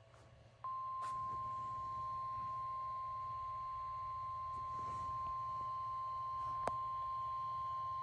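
NOAA Weather Radio's 1050 Hz warning alarm tone through a Midland weather alert radio's speaker, one steady high tone that comes in just under a second in. It signals a severe thunderstorm warning about to be read. A sharp click sounds about two-thirds of the way through.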